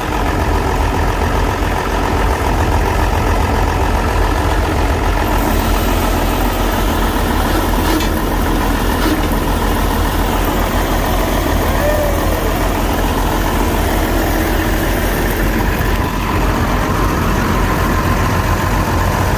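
Engine of an old homemade backhoe tractor running steadily at idle.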